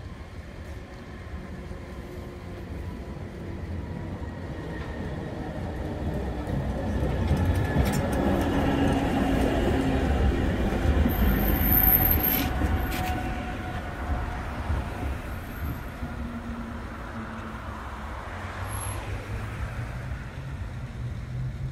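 Historic 1913 MAN tramcar passing on the rails. It rumbles louder as it approaches, is loudest about twelve seconds in as it goes by close, then fades as it moves away, with a brief high squeal near the closest point.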